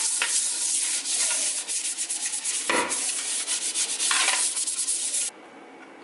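Stiff-bristled dish brush scrubbing the inside of a soapy wooden bowl: a fast, rough scratching with a few harder strokes, stopping abruptly near the end.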